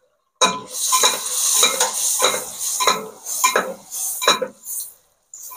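Doughnut balls deep-frying in hot oil, sizzling, while a metal slotted turner clinks and scrapes against the metal pot as they are turned, about twice a second. The sizzle is strongest for the first couple of seconds, and everything stops about five seconds in.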